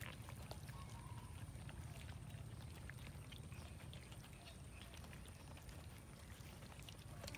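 Several cats chewing and licking at a cooked chicken carcass: many small, irregular wet clicks and crunches of eating, faint over a steady low hum.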